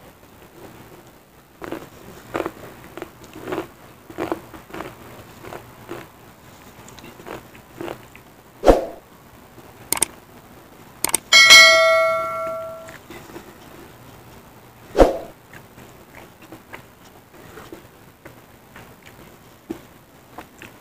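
Close-up eating sounds: chewing and small clicks of skewers and spoon, with two sharp loud knocks. About halfway through, a subscribe-button sound effect plays: a couple of mouse clicks, then a bell ding that rings for about a second and a half.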